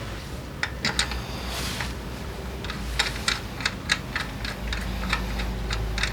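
A series of about a dozen sharp clicks and taps, unevenly spaced and grouped most thickly between about three and four seconds in, over a steady low hum.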